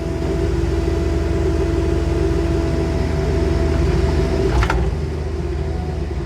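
Skid steer loader's diesel engine running steadily, heard from inside the cab, with a steady whine over it. About four and a half seconds in there is a sharp clank and the whine stops while the engine keeps running.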